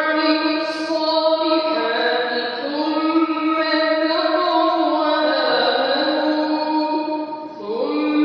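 A man's voice reciting the Quran in melodic tajweed style, drawing out one long ornamented phrase with stepwise turns in pitch. He takes a short breath near the end and then starts a new phrase.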